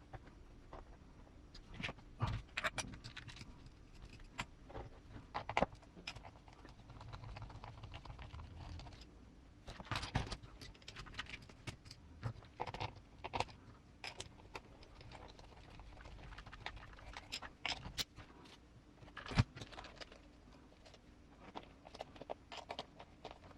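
Irregular light clicks, taps and rattles of small plastic and metal parts handled on a workbench, as tire-and-wheel assemblies are fitted onto a 1/10 RC rock crawler's axles.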